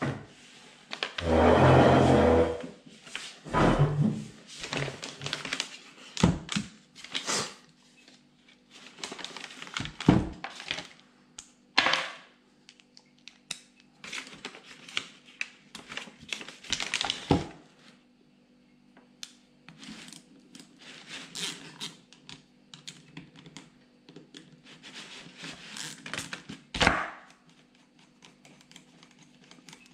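Irregular metallic clicks, taps and knocks of a Peugeot/Citroën HDi starter motor being taken apart with a hand bit driver, the housing and parts knocking against the table. There is a heavier clunk near the start and a sharp knock near the end.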